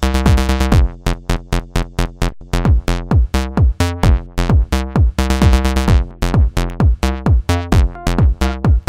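Electronic dance music: a fast, steady drum-machine beat whose deep hits drop in pitch, over sustained synthesizer chords.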